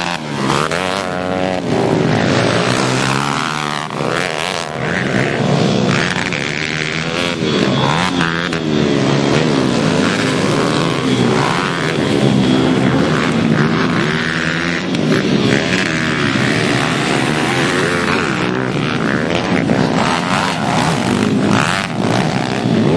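Pit bike engines revving hard and easing off, over and over, the pitch rising and falling with each throttle change as the bikes race round a dirt track.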